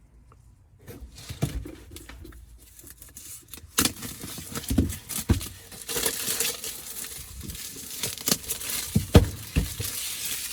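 Hair dryer box being opened and its packaging handled: scattered knocks and taps, joined by rustling from about six seconds in.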